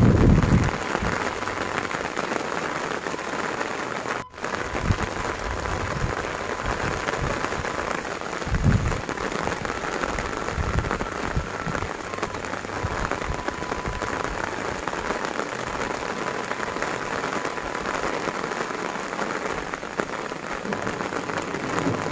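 Heavy rain falling steadily, an even hiss, with a short low rumble about eight seconds in.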